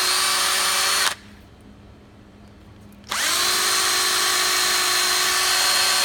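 Power drill with a 3/16-inch bit pre-drilling screw pilot holes into the edge of an MDF door. It runs steadily, stops about a second in, then spins up again about three seconds in and runs on.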